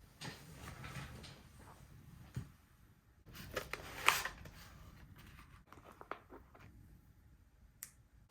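Hands handling computer parts and packaging: rustling with a few sharp clicks and knocks, the loudest about four seconds in.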